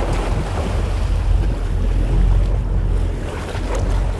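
Steady boat noise on a sportfishing boat: a low rumble with water rushing and wind buffeting the microphone.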